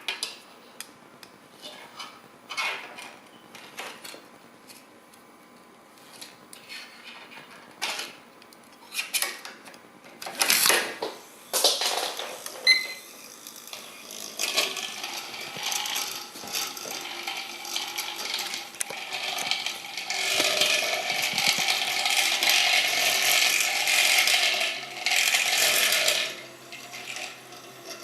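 Toy gyroscope on a needle point: scattered clicks and knocks, then a steady mechanical rattling cranking noise that builds about halfway through, is loudest for several seconds near the end, then drops off suddenly.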